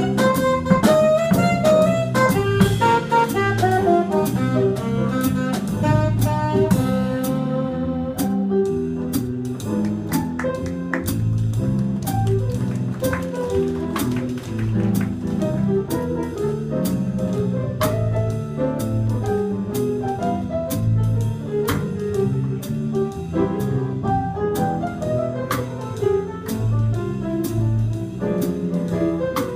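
A small jazz band playing live: a saxophone plays a busy melody over a walking bass line and a drum kit keeping time on the cymbals. The busy high melody stops about seven seconds in, and the band plays on.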